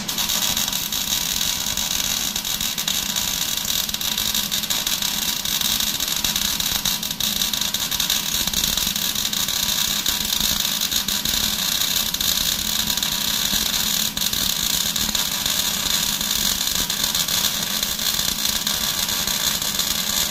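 Wire-feed welder arc burning a steady weld bead on the steel backhoe bucket: a continuous crackling hiss that starts abruptly and runs unbroken for about twenty seconds.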